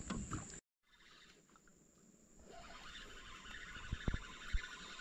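Faint riverside ambience of insects chirping, with a steady high-pitched whine. The sound cuts out for a moment about half a second in, and the chirping swells again from about halfway. There are a couple of soft knocks near the end.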